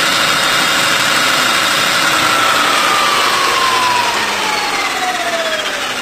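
Energica Ego electric motorcycle's motor and drivetrain whining, spun up unloaded to top speed (about 243 km/h on the dash). A high steady whine holds for about two seconds, then falls smoothly in pitch as the wheel winds down.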